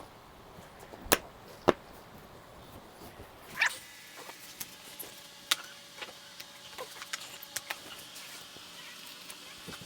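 Two sharp knocks about half a second apart, then a short scrape and scattered lighter clicks and rattles: hands and tools at work on an e-bike wheel, taking off the tyre and inner tube.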